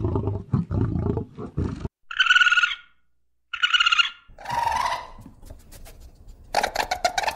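Animal calls: a deep, rough roar-like call for about two seconds, then after a short gap two brief high-pitched calls, followed by more calls and a loud one near the end.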